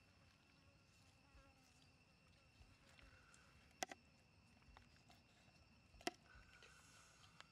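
Faint, steady high insect drone, with a fly buzzing in the first couple of seconds. A few sharp clicks from a serrated knife cutting a cooked goat leg on a plate: a quick double about four seconds in and one more about six seconds in.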